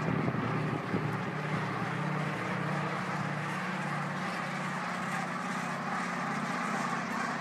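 Large flock of brent geese flying overhead, a steady dense chorus of many overlapping calls.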